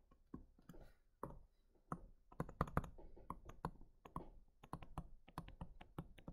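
Stylus tip tapping on a tablet screen while handwriting, a faint, irregular run of light clicks that comes thicker from about halfway through.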